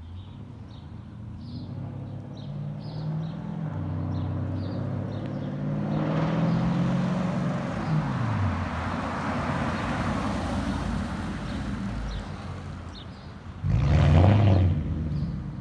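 2004 Porsche Cayenne S V8 with the mufflers deleted, exhaust running through straight pipes with the catalytic converters still in, accelerating up the street and passing by. Its note climbs, drops in pitch about 8 seconds in as it goes past, and a sudden loud blast of throttle comes near the end.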